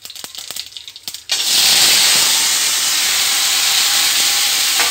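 A few small crackles from the hot oil, then about a second in a sudden loud, steady sizzling hiss as grated cucumber goes into the hot oil of a cumin, chilli and mustard-seed tempering in a kadhai.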